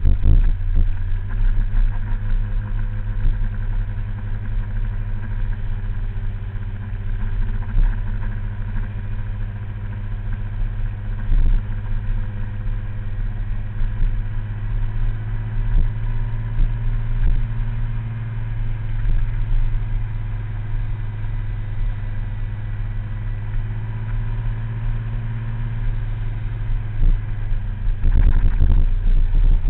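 Small scooter engine running steadily at cruising speed, heard from the scooter itself, with a few short knocks along the way. The sound gets louder and rougher near the end.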